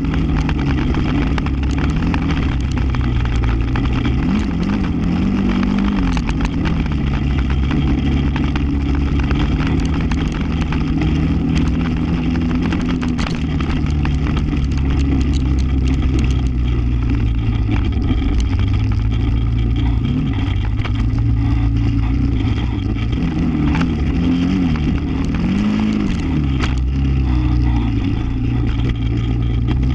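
ATV engine running under way, its pitch rising and falling with the throttle a few times, with scattered sharp ticks over it.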